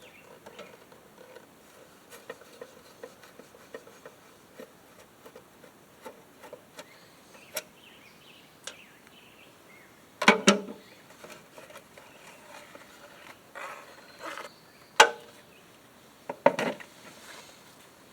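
Hand tools and loose metal parts being worked on a push mower's recoil starter housing: light ticking and clicking, then three louder clanks about ten, fifteen and sixteen and a half seconds in.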